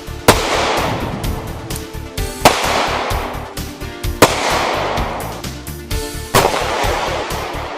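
Music with a steady beat, punctuated by loud sharp hits with a long ringing decay about every two seconds.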